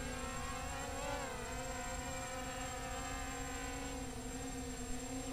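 Small quadcopter's Emax 2204 2300 kV brushless motors and 6-inch props hovering low in altitude hold: a steady buzzing whine that rises briefly in pitch about a second in, then settles.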